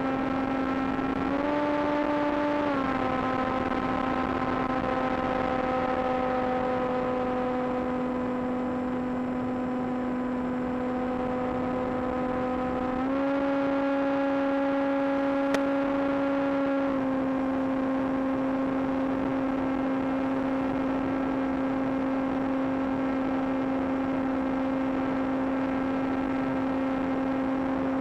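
Electric motor and propeller of a small foam RC plane droning at a steady pitch over a steady hiss. The pitch steps up briefly near two seconds in, then again for about four seconds in the middle, as the motor speeds up.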